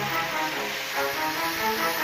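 Background music: a melody of short notes, with no bass.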